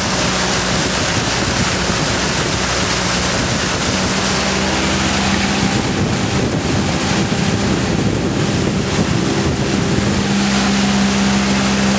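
A motorboat's engine runs steadily under way, over the rush of wind on the microphone and water along the hull. For a few seconds in the middle the engine note wavers, then it settles back steady and a little louder near the end.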